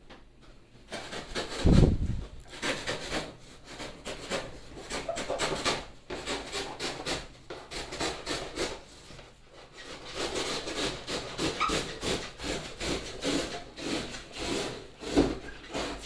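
Rough, irregular scraping and rubbing of packaging being cut and worked off a new refrigerator, starting about a second in, with a heavy thump about two seconds in.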